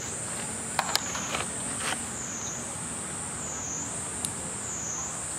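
A high, steady insect drone, typical of cicadas, wavering up and down in pitch about every second and a half. A few brief sharp sounds break in about a second in and again near two seconds.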